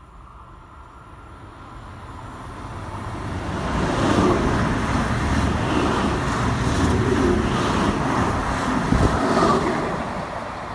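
BLS electric multiple unit running through the station at speed: a rising rumble and rail noise as it approaches, then several seconds of loud running noise with a regular clatter of wheels as the cars go by, easing off near the end as it moves away.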